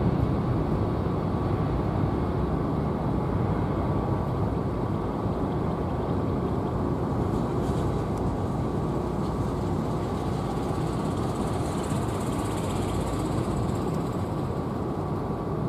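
Boeing 767-300's twin turbofan engines at taxi power as the airliner taxis past: a steady rumble and hiss with a faint whine, easing off slightly.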